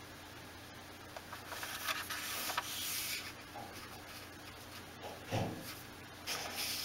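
A sheet of paper sliding and rustling on a wooden tabletop as hands line up its edges, in soft scraping stretches with a few faint taps.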